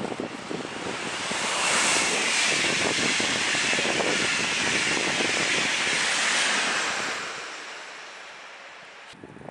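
Red Railjet express passenger train passing at speed on electrified track: a rushing of wheels and air that swells about a second in, holds for about five seconds as the coaches go by, then fades as the train recedes. The sound cuts off abruptly near the end.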